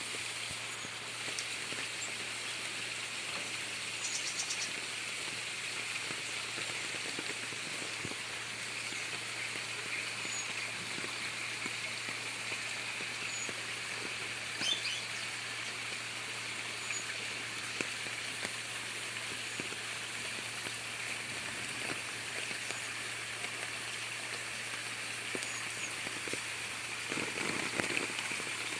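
Steady rain falling, with short high bird chirps every few seconds.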